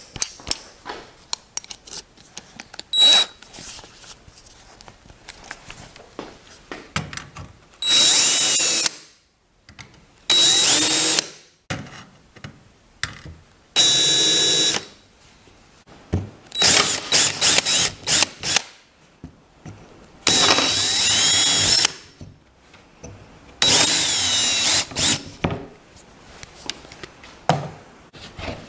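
Cordless drill boring holes into plywood in about six short runs of a second or two each, with faint knocks between the runs.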